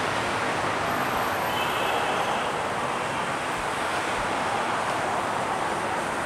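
Steady city street traffic noise: a continuous hum of passing vehicles.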